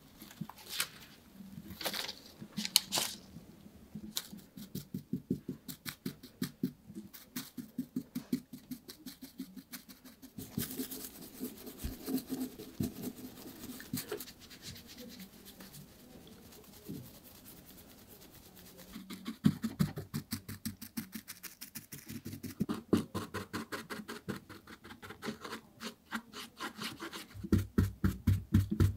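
Soft brush flicking over gold foil laid on a shoe, brushing off the excess in a fast run of small crinkly strokes, several a second. A few louder rustles of foil and backing paper come near the start.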